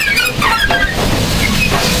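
BR Standard Class 5 4-6-0 steam locomotive at close quarters: a loud, steady hiss-like noise, with a few short high squeaks in the first second.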